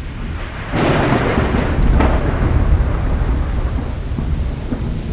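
Thunderstorm sound effect: steady rain with rolling thunder that swells loudly about a second in.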